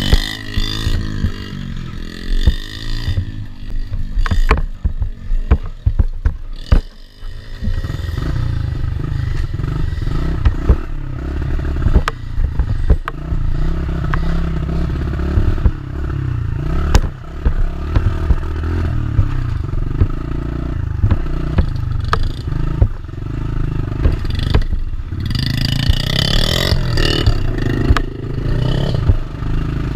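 Dirt bike engine revving up and down through the first several seconds, then running steadily under load from about eight seconds in, with frequent clattering knocks throughout.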